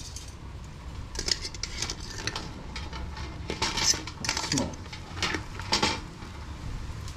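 Metal tongs clinking and scraping against a stainless-steel stockpot and the shell of a boiled mud crab as the crab is gripped and lifted out of the water: irregular sharp clatters over a low steady rumble.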